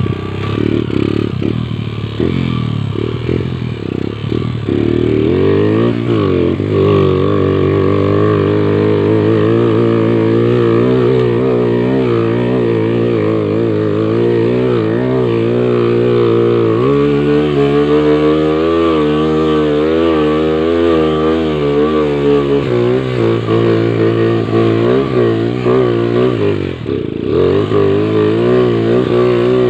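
Motorcycle engine revving hard under load on a steep uphill climb, its pitch rising and falling unevenly with a steadier high-revving stretch in the middle and a brief drop near the end.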